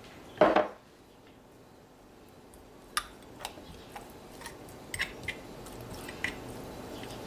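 Metal spoon scraping and tapping minced garlic onto raw pork chops in a glass baking dish, with a few light clicks of spoon against meat and glass. A dull knock about half a second in is the loudest sound.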